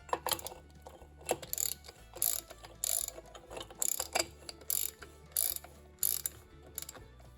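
Ratchet wrench clicking in about ten short strokes, tightening the last lock nut over the keeper washer on a Willys CJ-2A front wheel spindle until it is snug.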